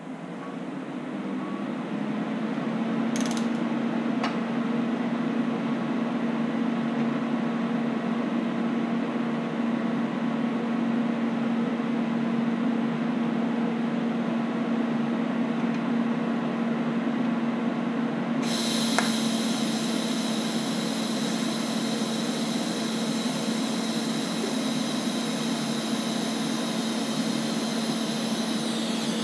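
TIG welder's cooling fan spinning up over the first couple of seconds, then running with a steady hum; it is a pretty loud fan. About two-thirds of the way through, a high, steady whine joins it for about ten seconds.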